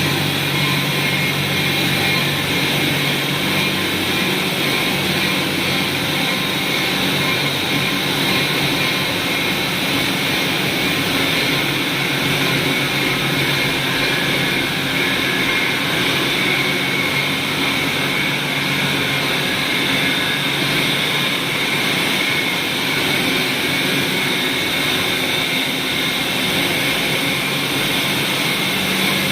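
Wire-production machinery running continuously, a steady, even machine noise with a low hum and no changes.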